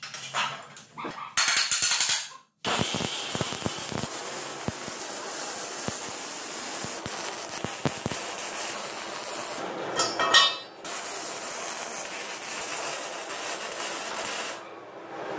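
Electric arc welding on square metal tubing: a steady crackling hiss from the arc, starting about two and a half seconds in after a few metal clinks of the tubing and clamp being set in place, with a louder burst near ten seconds and stopping just before the end.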